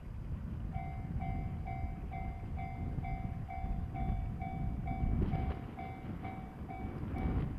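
Railway level-crossing alarm starting up about a second in, a two-tone electronic ding repeating a little over twice a second, the warning that a train is approaching. Underneath is a steady low rumble of wind on the microphone.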